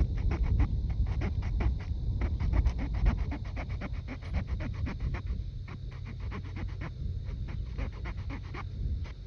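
The saw blade of a Leatherman Wave multi-tool cutting through a wet wooden stick, in quick, steady back-and-forth strokes.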